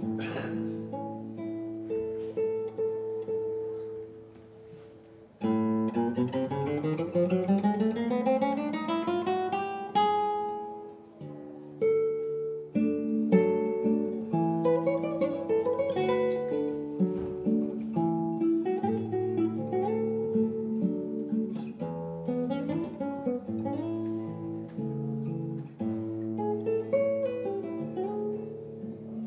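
Solo classical guitar played fingerstyle: notes ring and die away about four seconds in, then a long passage climbs steadily in pitch for several seconds before plucked chords and melody resume.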